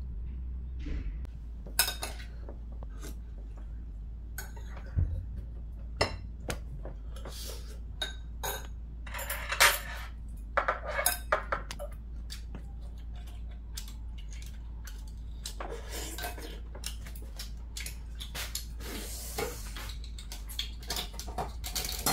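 Metal chopsticks and a spoon clinking against a ceramic bowl of mussels while eating, in scattered irregular clicks and short clatters.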